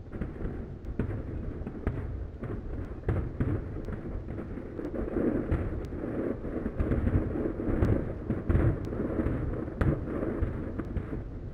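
Finale barrage of aerial firework shells bursting: a continuous low rumble of overlapping booms, crossed by many sharp cracks a fraction of a second apart. It grows denser and louder about halfway through.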